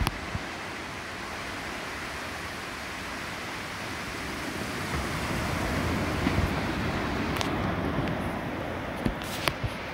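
Steady outdoor background rush with no distinct tones. It swells from about five seconds in, and a few sharp clicks come near the end.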